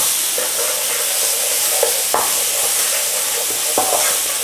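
Onion paste and spices sizzling in oil in a non-stick frying pan, stirred with a spatula that scrapes across the pan a few times.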